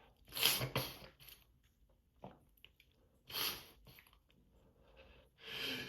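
Short, breathy sniffs and hard breaths through an allergy-congested nose. There are four bursts: two close together near the start, one in the middle and one near the end.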